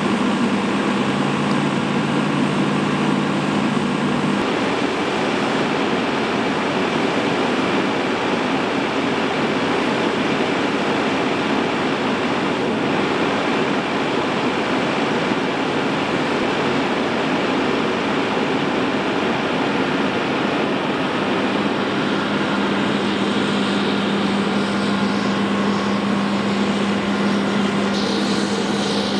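Steady rushing noise of a fire-hose stream spraying onto a burning semi-truck, with the fire burning underneath. A steady low hum runs for the first few seconds and comes back about two-thirds of the way through.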